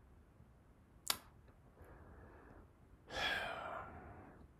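A man sighs out through his mouth about three seconds in, a breathy exhale lasting most of a second. A single sharp click comes about a second in.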